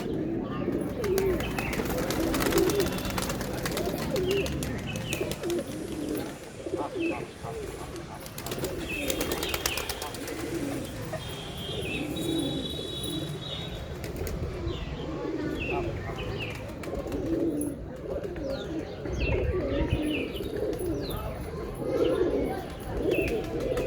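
Pigeons cooing, a continuous run of low, rolling coos overlapping one another, with short high chirps over them.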